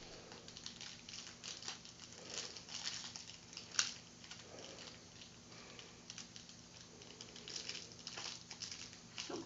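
Crinkly plastic toy wrapping rustling and tearing as small hands pick at it and cut it open with scissors. There are scattered faint clicks and one sharper click about four seconds in.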